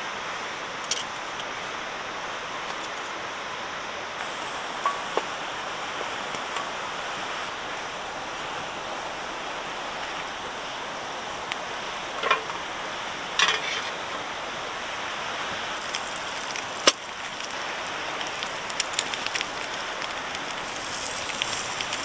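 Steady rushing hiss with a few sharp clicks and clinks scattered through it; the loudest click is a single sharp one about two-thirds of the way in.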